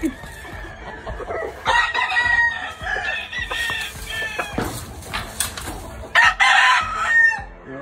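Gamefowl roosters crowing: a long crow starting a little under two seconds in, then a shorter, louder call near the end.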